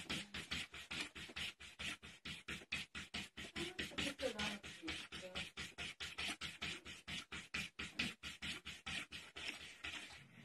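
A cat pawing rapidly at a wooden cabinet door, the door knocking against its frame in an even run of sharp taps about five times a second.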